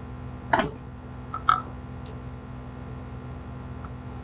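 Steady low room hum with a short breathy sound about half a second in, then a couple of small faint clicks.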